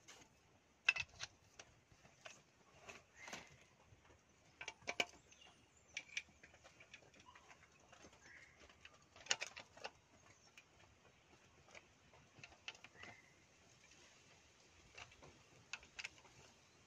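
Scattered, irregular metal clicks and taps from a long steel rod worked against the charge pump inside the bell housing of a JCB 3DX transmission.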